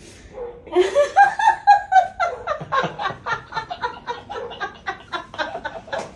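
People laughing hard, with a long run of quick, high 'ha-ha' bursts starting about a second in.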